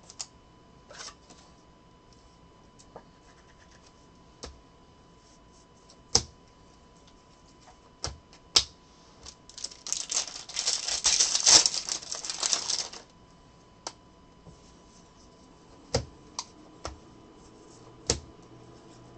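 Trading cards being handled by hand: scattered sharp clicks and taps as cards are flicked and set down. From about 9 to 13 seconds in comes a dense, rapid rattle of cards as a stack is worked through.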